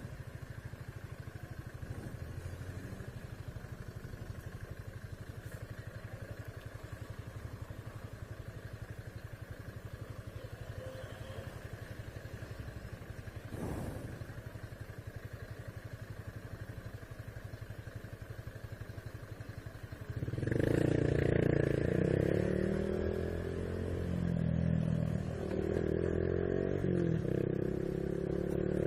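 Honda Biz 125's single-cylinder four-stroke engine running steadily at low revs, with a single knock about halfway. About two-thirds of the way in it gets much louder and revs up, rising and falling in pitch as the bike accelerates.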